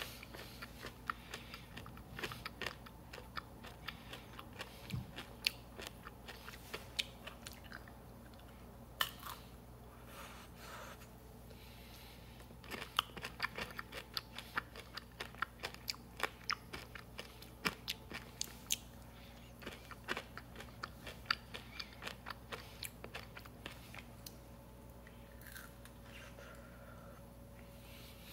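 Close-up chewing of candy-coated Peanut Butter M&M's: the hard sugar shell cracks and crunches in many short, sharp crackles, most densely from a little under halfway through.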